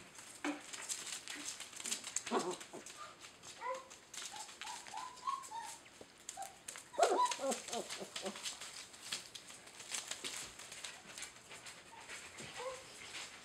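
German shepherd puppies play-fighting, with many short high yips and whimpers, a loud cluster of them about seven seconds in. Under the calls runs a constant scratching and rustling as the pups scramble over newspaper and blanket.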